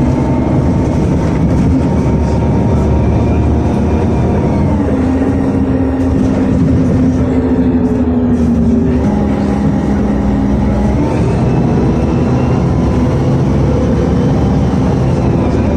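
Cabin noise of a Volgabus-5270.G4 city bus on the move, its Weichai WP7NG280E51 compressed-natural-gas engine and drivetrain droning under steady road noise. The engine's pitch drops about five seconds in and climbs again later as the bus changes speed in traffic.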